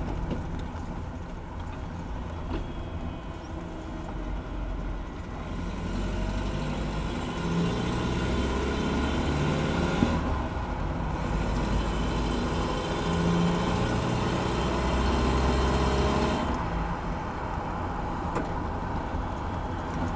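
Manual pickup truck's engine and road noise heard inside the cab while driving. The engine note climbs twice as it accelerates through the gears, on a test drive of its newly fitted transmission and clutch.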